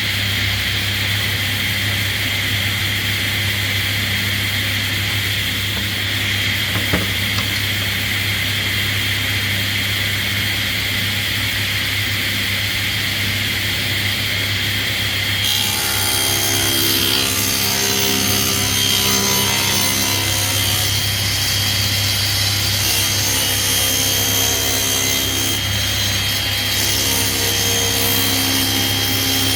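Table saw running steadily, its blade ripping a thin strip off a sheet of plywood; the sound turns rougher and more uneven about halfway through as the blade works through the wood.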